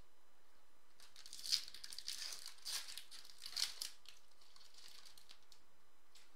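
Foil wrapper of a Topps Chrome trading-card pack crinkling as it is torn open, in a few short crackly bursts over about three seconds, then softer handling as the cards come out.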